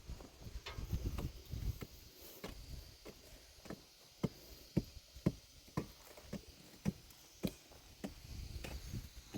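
A series of sharp knocks at an even pace, about two a second through the middle of the stretch, with fainter, more irregular knocks before and after.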